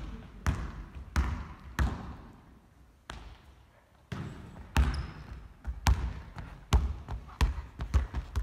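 Basketball bouncing on a hardwood gym floor: a series of sharp bounces about every half to three-quarters of a second, with a quieter lull near the middle before the bouncing picks up again.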